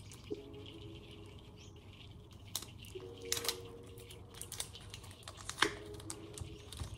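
Fingers picking at and peeling the plastic wrapping of a small food cup: faint crinkling and rustling with a few sharp clicks.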